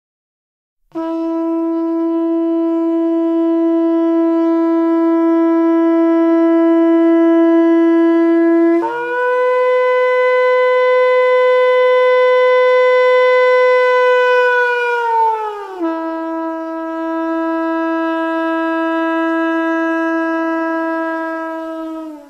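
Shofar blown in long held blasts: a low note for about eight seconds, a jump up to a higher note that is held, then sags and slides back down, and the low note again until it stops near the end.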